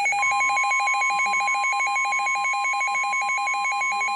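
Weather radio alert: a rapid electronic alarm pulsing about ten times a second, joined just after the start by the steady 1050 Hz warning tone that announces a NOAA Weather Radio emergency broadcast, here a tornado warning.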